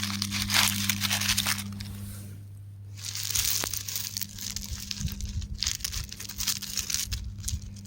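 Rock crumbling in a dense run of small crackles and crunches, with a short lull about two and a half seconds in. A steady low hum runs underneath.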